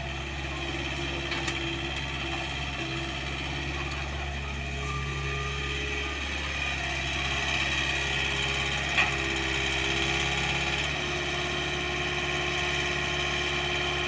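Kobelco mini excavator's diesel engine running steadily as it swings and digs, with one sharp knock about nine seconds in.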